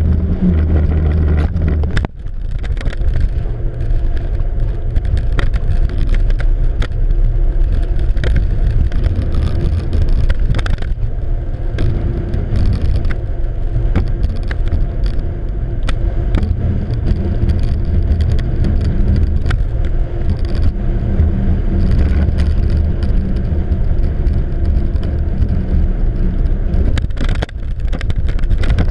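Twin outboard motors running steadily under load while towing a cabin cruiser, with wind buffeting the microphone and rushing water over the engine note.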